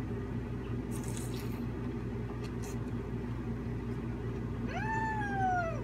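A steady low hum in the room. Near the end, a single short meow rises and then slowly falls.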